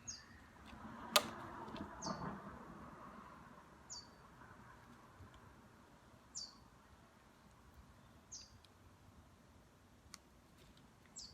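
Faint, short high chirps, each falling in pitch, repeating about every two seconds like a small bird calling, with one sharp click about a second in.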